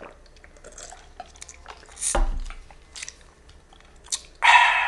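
A man drinking juice: small wet mouth clicks and swallows, a louder thump about two seconds in, and a breathy exhale near the end.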